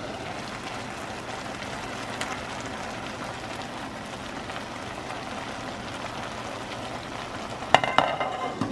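Sunflower seeds boiling in water in a stainless steel pot, a steady bubbling. Near the end the glass lid knocks against the pot rim several times with a short metallic ring.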